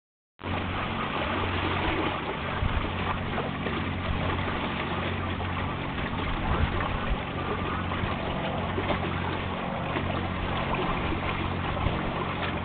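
Wind on the microphone and water rushing along the hull of a sailboat under way, a steady even wash with a steady low hum underneath.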